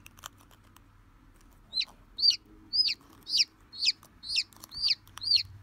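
Newly hatched chick peeping: about eight sharp peeps, roughly two a second, starting nearly two seconds in, each dropping in pitch. A couple of faint clicks come just before.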